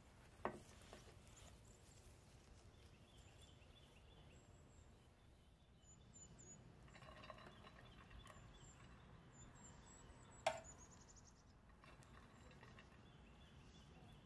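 Faint kitchen sounds of a metal slotted spoon serving rice onto a ceramic platter: a soft scraping rustle of rice sliding off the spoon, then a sharp clink of spoon against the plate about ten seconds in. There is also a single short knock near the start.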